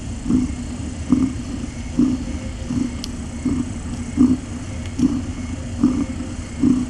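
Cat purring close to the microphone, a low rumble that swells in an even rhythm a little more than once a second, with each breath in and out.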